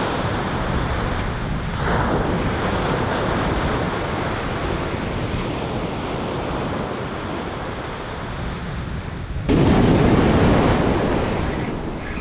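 Ocean surf breaking and washing up a sandy beach, with wind buffeting the microphone. About nine and a half seconds in it cuts sharply to a closer, louder rush of whitewater.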